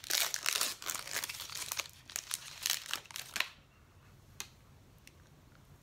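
A Built Bar protein bar wrapper being torn open and crinkled for about three and a half seconds, then it goes quiet apart from a faint click.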